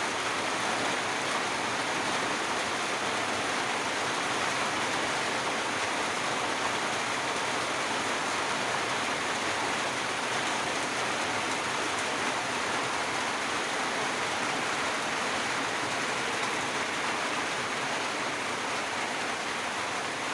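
Steady rain falling in a forest: an even, unbroken hiss with no separate drops standing out.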